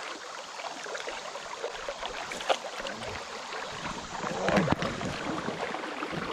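River water splashing and running, with many small splashes and a louder splash about four and a half seconds in.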